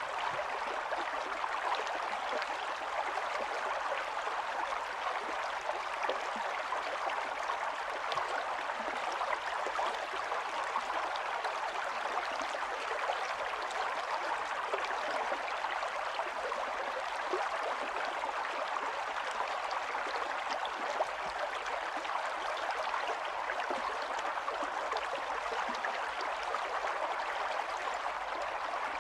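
Steady rain falling, an even hiss of many small drops with fine pattering ticks throughout.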